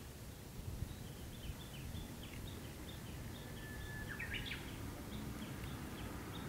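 Small birds chirping: a quick run of short, high chirps repeated about four times a second, with a louder burst of notes about four seconds in, over a low outdoor background rumble.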